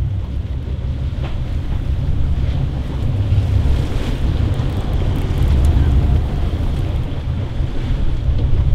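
Strong wind buffeting the microphone as a steady low rumble, over the wash of a rough sea.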